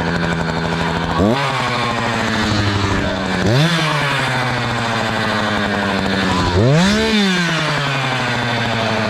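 Two-stroke Echo chainsaw running at idle and revved three times, each rev rising sharply in pitch and sliding back down to idle.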